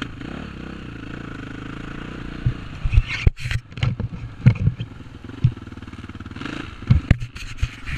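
Dirt bike engine running while it rides a rough motocross track, steady at first. From about two and a half seconds in, repeated thumps and knocks from the bike jolting over ruts and bumps break in, with a brief dropout about three seconds in and another cluster of knocks near the end.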